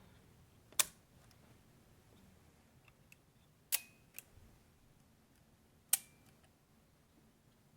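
Rolleiflex twin-lens reflex leaf shutters being released: sharp, short mechanical clicks, three releases spread over several seconds. The second release gives two clicks about half a second apart, and two of the clicks leave a brief faint ring.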